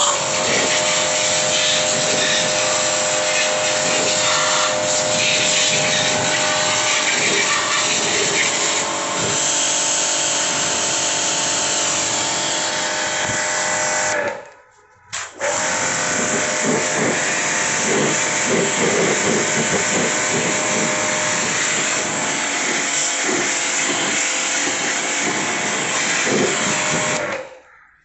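Starq AWP 2.4 2400-watt electric pressure washer running: a steady motor-and-pump hum under the hiss of the water jet hitting a plastic stool and the concrete floor. It stops for about a second halfway through, then runs again until it cuts off near the end.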